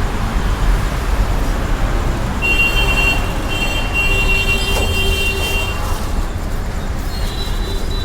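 Steady rumble of road traffic, with a high steady tone sounding for about three seconds starting about two and a half seconds in, and again near the end.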